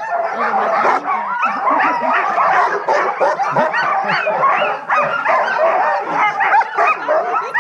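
A yard full of sled dogs barking and yipping all at once, many calls overlapping without a break: the excited clamour of dogs in harness, eager to pull before a run.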